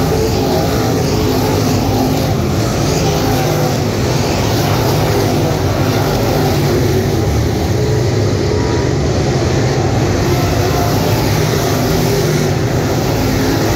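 A field of dirt late model race cars with Chevrolet 604 crate V8 engines racing around the oval, a steady loud engine din as the cars pass close by the stands.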